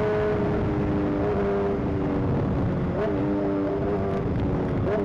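Honda CBR600 inline-four motorcycle engine running at road speed over a steady rush of wind noise. Its pitch drops about half a second in and then rises briefly twice, around three seconds in and near the end, as the revs change.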